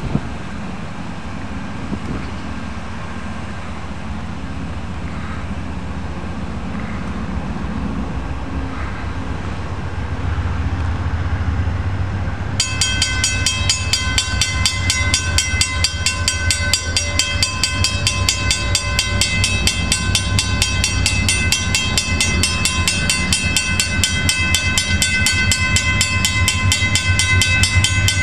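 A diesel train's low rumble grows louder as it approaches the grade crossing. About halfway through, the crossing signal bell starts suddenly and rings in a fast, steady rhythm, louder than the train, as the flashing lights and gates activate.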